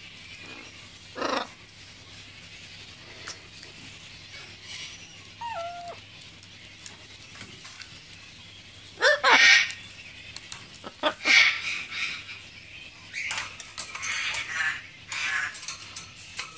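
Macaw calling in separate bursts: a short call, a brief whistle stepping down in pitch, then loud harsh squawks and a run of raspy, buzzing calls in the second half.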